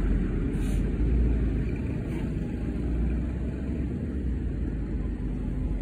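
Steady low rumble of city street traffic, engines and tyres, with no single vehicle standing out.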